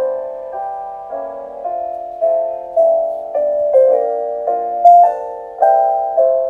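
Background music: a gentle piano piece, notes and chords struck about twice a second, each fading away.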